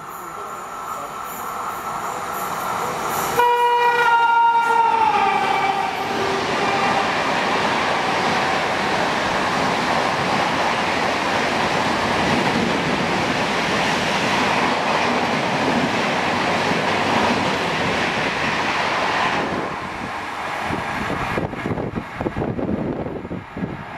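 A WAP-7 electric locomotive hauling the Rajdhani Express approaches at speed, its noise building. It sounds its air horn about three and a half seconds in, a chord of several notes that drops in pitch as it passes. Then the coaches rush by with steady noise of wheels on rail, which falls away sharply about twenty seconds in, leaving irregular gusts from the train's wake.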